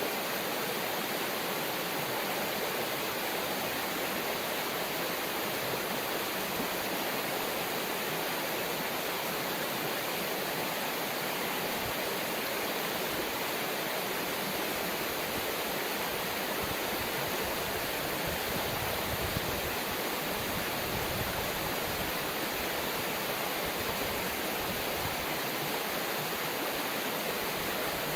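River water running steadily over its bed, a dense, even rush of noise.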